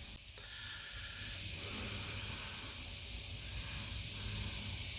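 Steady hiss with a faint click as it starts, cutting off suddenly after about five seconds: the microphone noise of a security camera's live feed playing on a phone.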